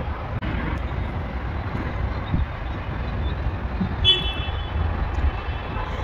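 Steady low outdoor rumble, with a short, high-pitched toot about four seconds in.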